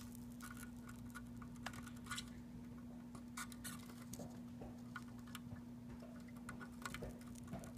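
Faint, irregular crackling and ticking of flux sizzling under a soldering iron tip as a flux-dipped copper wire soaks up the old solder from a stepper motor's pins. A steady low hum sounds underneath.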